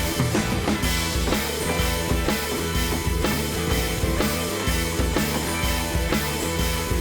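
Background music: a rock track with drum kit, bass and guitar over a steady beat.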